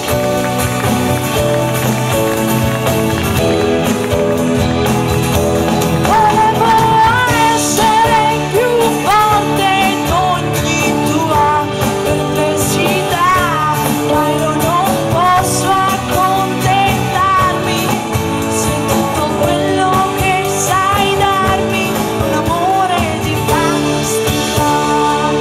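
Live band music with a woman singing into a handheld microphone. Her voice comes in about six seconds in, over guitars, drums and keyboard, with long notes that slide and waver in pitch.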